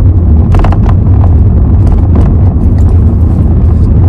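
Steady low rumble of a car's cabin, loud throughout, with a few short, sharp clicking or rustling noises, the clearest about half a second in and a little after two seconds in.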